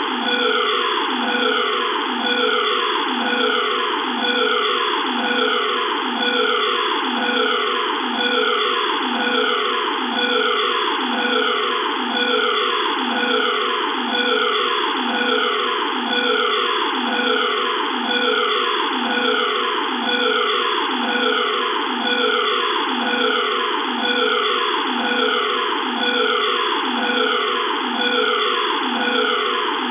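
Electronic emergency alarm sounding continuously: a siren-like tone that sweeps down in pitch over and over, about three sweeps every two seconds, steady and unchanging.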